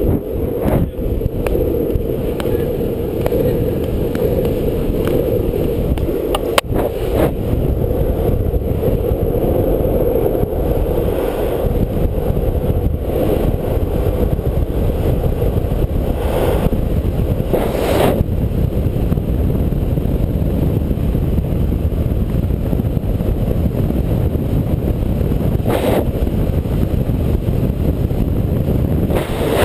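Steady roar of a longboard's wheels rolling fast on asphalt under heavy wind buffeting on the rider-mounted microphone during a downhill run. A sharp click comes about a quarter of the way in, and a few brief louder rushes follow later.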